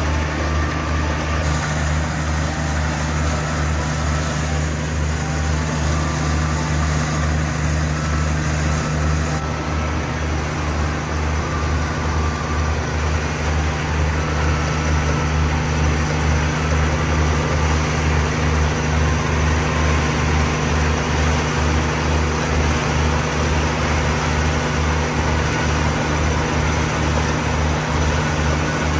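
Kubota KALWEY KR220 two-row combine harvester running steadily while cutting and feeding rice, a constant low engine drone under the clatter of its working machinery.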